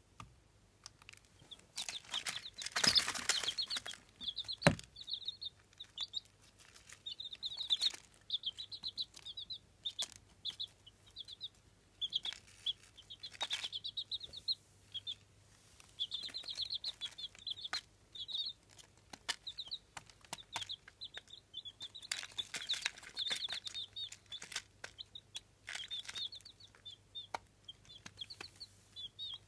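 Eight-day-old Jawa Aseel chicks peeping, in repeated trains of rapid, high chirps. Bursts of rustling come and go among the peeps, loudest about two to four seconds in, with a single thump just after.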